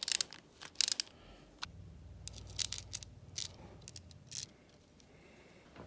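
Small metal parts of a Shimano Chronarch Ci4+ baitcasting reel and a screwdriver clicking and clinking as the reel is reassembled by hand: a string of separate sharp clicks, with a low hum for a few seconds in the middle.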